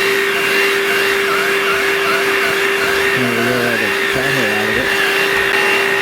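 Bissell Pet Hair Eraser cordless handheld vacuum running steadily with a high whine, a higher tone wavering as it is worked over cat hair on upholstery.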